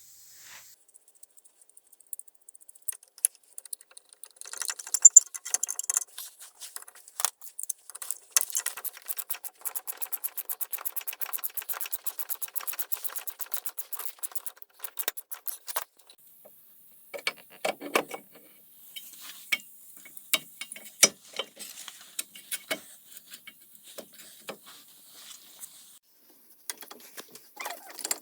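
Hand tools and metal brake parts clinking and knocking during front brake pad replacement, with a run of rapid, evenly spaced clicks lasting several seconds in the middle.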